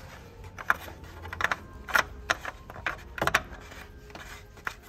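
Scattered sharp clicks and light knocks of the plastic oil filler cap being screwed back onto the engine after an oil top-up.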